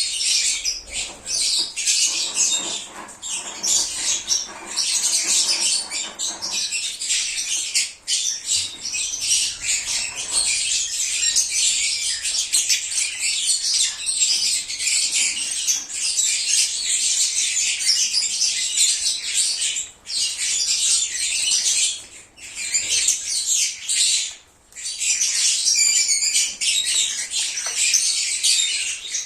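A flock of lovebirds chattering, with shrill chirps and squawks overlapping almost without a break, dropping away only briefly a few times late on.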